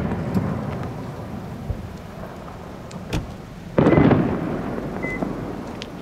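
Fireworks shells bursting overhead with deep booms: the rumbling tail of one burst fades over the first two seconds, a second big boom comes just before four seconds in and rolls away slowly, with a few small pops and faint crackles between.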